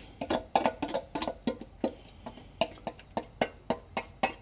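A spoon knocking and scraping against a stainless-steel colander as chopped onions are knocked out of it into a pot. It makes a quick, uneven run of sharp metallic clicks, about three or four a second, each ringing briefly.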